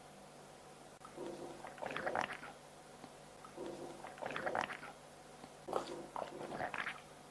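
A person coughing in three separate bouts, each about a second long and roughly two seconds apart.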